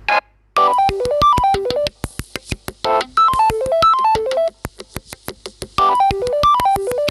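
A Samsung Galaxy M31 ringtone playing: a quick synth-keyboard melody of short notes stepping down and back up over a light beat, the phrase looping about every two and a half seconds. It starts about half a second in, after a short blip.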